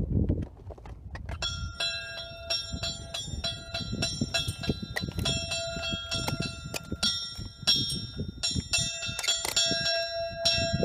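Metal summit bell on a post rung by hand, many quick irregular clangs with a lingering ring, starting about a second and a half in.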